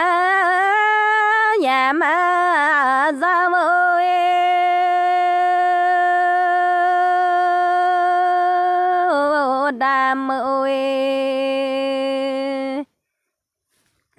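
A single voice singing a Dao folk song (hát lượn) unaccompanied: wavering, ornamented phrases, then a long held note that drops to a lower held note and cuts off suddenly near the end.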